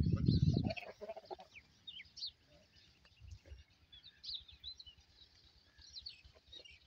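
A goat calling low in the first second, while small birds chirp throughout.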